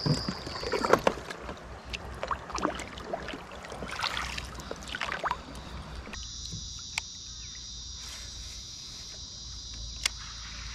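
Kayak paddle strokes dipping and splashing in river water, irregular and uneven. About six seconds in the splashing stops and a steady high-pitched buzz takes over, broken by two sharp clicks.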